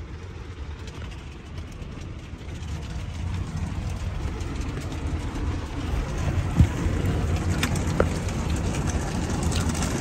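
Spinning cloth brushes of an automatic car wash scrubbing against the car's body and windows, heard from inside the cabin: a steady rumbling wash that grows louder, with a sharp knock about six and a half seconds in and another near eight.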